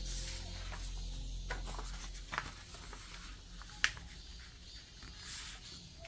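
A sheet of white paper being lifted, folded in half and pressed flat by hand: soft rustling with a few short, sharp crackles, the loudest about four seconds in.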